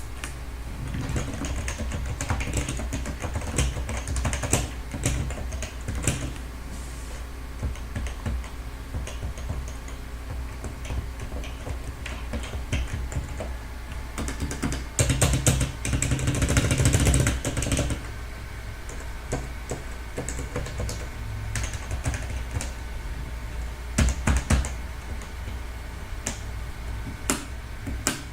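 Typing on an HHKB keyboard with 45 g Topre electrostatic-capacitive rubber-dome switches: a quick, irregular run of keystrokes that grows busier and louder for a few seconds past the middle, with a few heavier single strokes near the end, over a steady low background hum.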